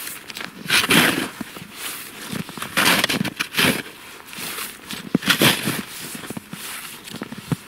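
Plastic NIX 2 snow shovel digging into deep snow and tossing it: several crunching, scraping scoops a second or two apart.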